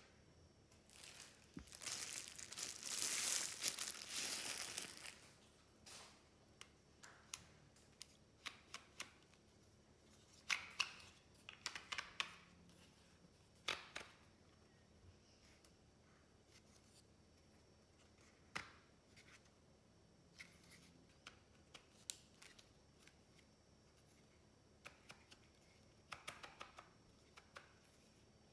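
Plastic packaging crinkling and tearing for a few seconds near the start, then scattered light clicks and taps as a white plastic folding stand is handled and opened out.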